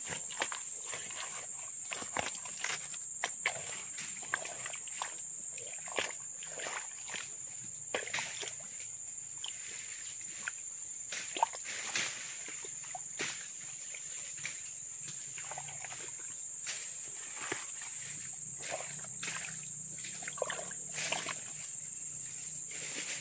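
A hand working in a small muddy, water-filled hole among dead leaves: irregular squelches, sloshes and leaf rustles. Over them runs a steady high drone of insects.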